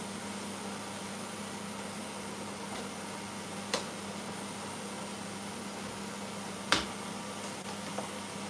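Steady hum and hiss of a kitchen at the stove, with two sharp knocks of a utensil against a pan, a light one about four seconds in and a louder one about three seconds later.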